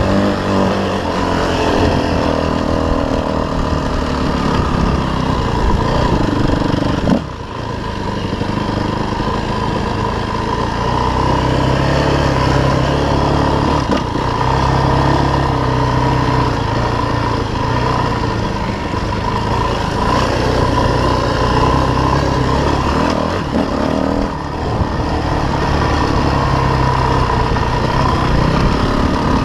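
Dirt bike engine running under throttle while the bike is ridden off-road, its revs rising and falling. The throttle shuts off briefly about seven seconds in, and again about three quarters of the way through.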